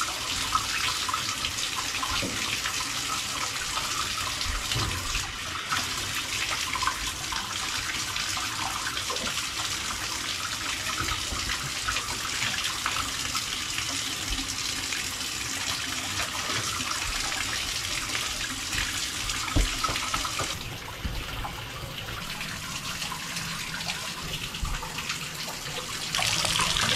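Water running steadily into a bathtub from the tap or shower, a constant splashing hiss. About twenty seconds in the sound thins and drops slightly, then picks up again near the end.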